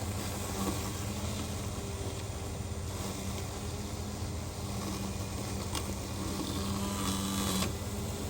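Mammotion Luba 2 robotic lawn mower's electric motors running with a steady hum as it cuts through tall weeds and brush.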